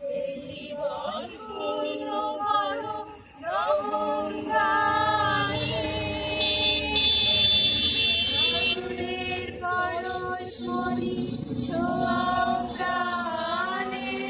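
A group of men and women singing together unaccompanied, in long held notes.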